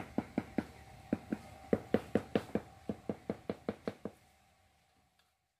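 A rapid series of sharp knocks, about five a second, coming in short runs over a faint steady hum and stopping about four seconds in.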